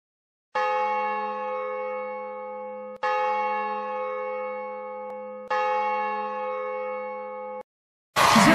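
A church bell struck three times, about two and a half seconds apart, each stroke ringing on and fading slowly until the next; the third stops abruptly, and music starts just before the end.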